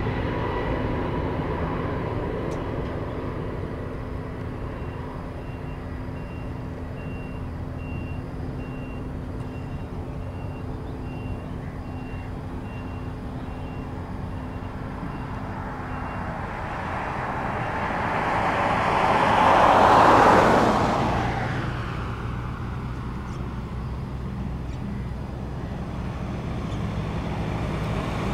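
Road traffic: a steady low engine hum, with a run of regular beeps like a vehicle's reversing alarm in the first half, then a vehicle passing close by about two-thirds of the way through, the loudest moment.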